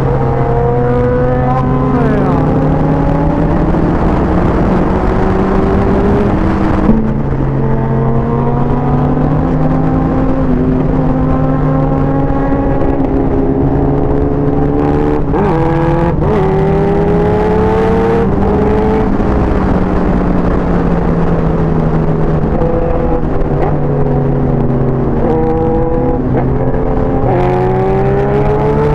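Suzuki Hayabusa's inline-four engine running under way. The revs climb slowly and drop back several times as it shifts gear.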